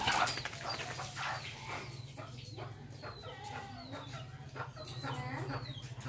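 Indian ringneck parrots chattering: a string of short squawks and chirps, several falling in pitch, loudest at the start and again about five seconds in, over a steady low hum.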